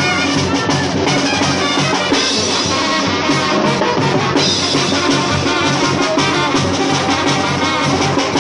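Live brass band playing: trumpets and a tuba over a steady drum beat.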